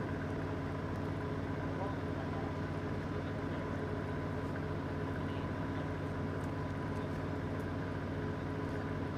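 Steady drone of a boat engine running at a constant speed, an even low hum with a fixed higher tone over it and no change in pitch.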